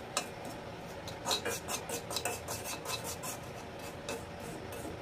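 Metal spoon stirring and scraping powdered rock salt dry-roasting in a black wok, making an irregular run of gritty scrapes and light clicks against the pan.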